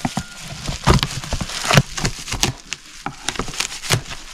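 Plastic bubble wrap crinkling and crackling as it is slit with a knife and pulled apart by hand, in irregular sharp crackles.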